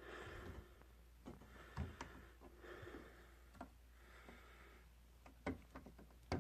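Faint, scattered clicks and knocks with a few brief patches of soft hiss over quiet room tone.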